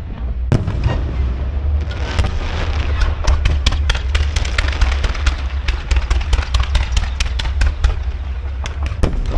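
Fireworks going off: a few loud cracks at first, then about two seconds in a rapid, dense run of sharp cracks and pops that keeps going, over a steady low rumble.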